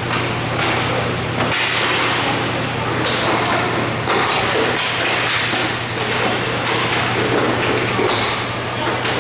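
Inline roller hockey play on an indoor rink: a steady low hum and rumble, broken by several sharp knocks of sticks, puck and bodies against the floor and boards.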